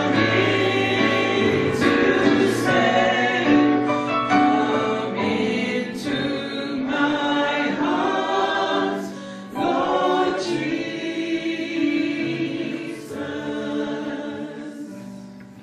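A vocal trio of two women and a man singing a gospel song in harmony into handheld microphones, the singing trailing off near the end.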